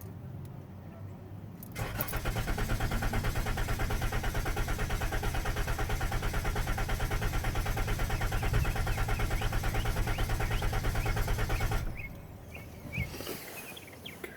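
2013 Ram van's starter cranking the engine for about ten seconds with a steady, even pulsing of about five beats a second, then cutting off without the engine catching: the van's no-start condition.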